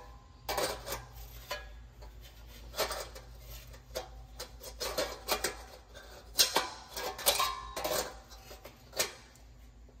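Gloved hands turning and handling a stainless steel furnace exhaust vent with push-in end caps: scattered light knocks and clicks with rubbing and scraping between them, the sharpest knock a little past the middle.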